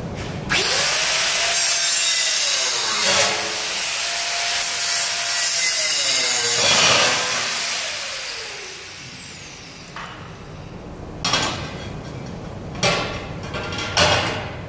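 Angle grinder starting up and grinding through the tack welds that hold a stainless steel plate down, its motor whine dipping twice under load, then spinning down after about seven seconds. Near the end come three short metal clanks as the plates are handled.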